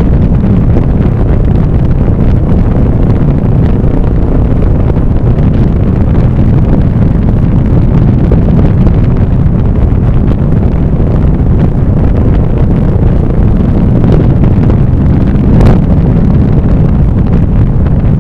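Steady, loud wind rumble on the microphone of a moving vehicle, with the vehicle's running noise underneath.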